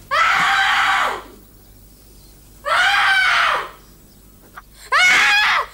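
A boy screaming in pain three times, each high scream lasting about a second. He is crying out as his legs, bent by infantile paralysis, are forcibly straightened.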